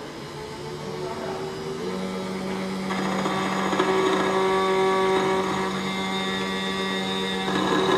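SEC-E9 CNC key cutting machine's cutter motor running as it mills a Toyota TOY43 key blank: a steady whine that grows louder over the first few seconds and settles from about two seconds in.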